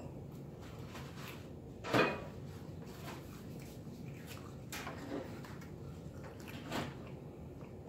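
Eating at a table: a few short knocks and rustles of a cardboard pizza box and food being handled, the loudest about two seconds in and softer ones around five and seven seconds, as a slice of pizza is pulled from the box.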